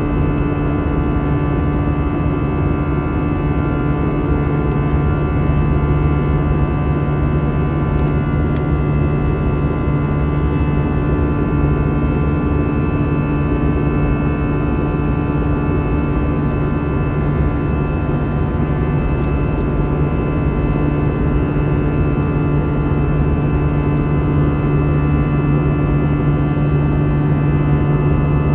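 Steady cabin drone of an Airbus A320-214's CFM56 turbofan engines under climb power, heard from inside the passenger cabin: a loud low rumble with several steady humming tones over it.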